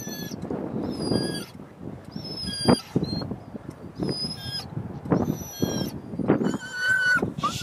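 A dog whining in repeated high-pitched, wavering cries, roughly one a second, with breathy noise under each.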